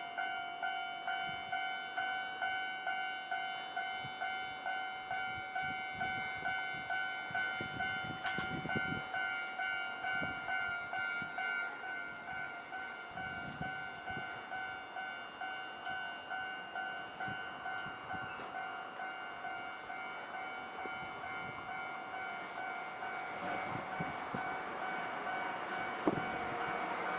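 Japanese level-crossing warning bell on a tramway crossing, ringing electronically in even repeated strokes, about one and a half a second, warning that a tram is coming. A low rumble builds under it near the end.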